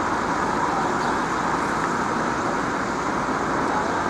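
Level crossing warning alarms sounding steadily while the barriers are down for an approaching train. One of the two alarms has a strange, squeaky, high-pitched tone.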